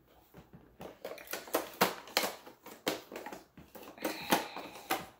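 Rustling, crinkling and irregular clicks of a makeup palette being taken out of a paper gift bag and handled.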